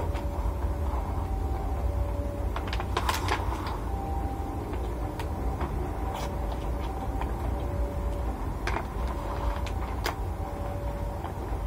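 Eating by hand, rice and grilled chicken: chewing and lip smacks heard as scattered short clicks, over a steady low hum.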